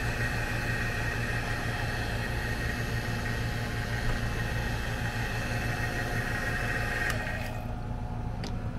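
CPS refrigeration vacuum pump running steadily, evacuating an air-conditioning system after a nitrogen pressure test. Its higher hiss drops away about seven and a half seconds in, leaving a lower hum.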